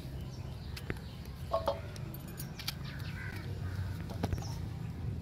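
A few light clicks of a knife and bananas against a stainless steel plate as the bananas are cut, with a bird calling faintly in the background.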